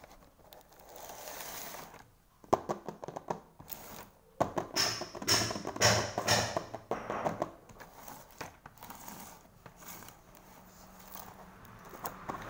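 Red plastic screw-top lids on clear plastic snack jars being twisted open, with scraping, ratcheting clicks of plastic thread on thread, loudest about halfway through and quieter scattered clicks after.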